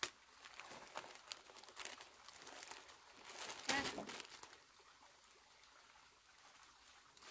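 Thin clear plastic bags crinkling and rustling as they are handled and pulled off potted seedlings, in short scattered rustles with the loudest crinkle a little past the middle.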